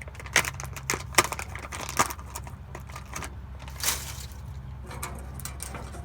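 Irregular sharp clicks and light rattling from fishing tackle being handled while a soft plastic worm is rigged, over a steady low hum.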